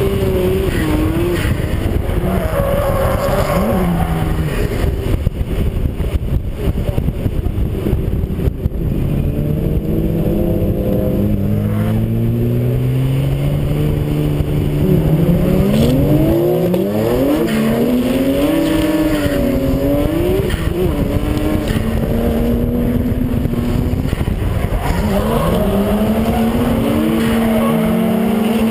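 Drift car's engine heard from a camera mounted low on the car's side, its revs swinging up and down again and again as the car slides through a run with its rear tyres spinning and smoking. There is a dense low rumble underneath throughout.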